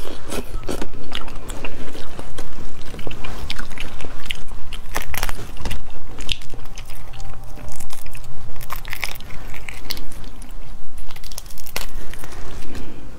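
Close-miked eating of cooked starfish: biting and chewing, with many sharp cracks and crackles as the stiff, crusty arms are broken open by hand.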